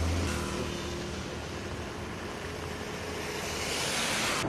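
Road traffic in heavy rain: vehicles running on a wet road under a steady hiss of rain and tyre spray. The hiss swells as a vehicle passes close near the end, then cuts off suddenly.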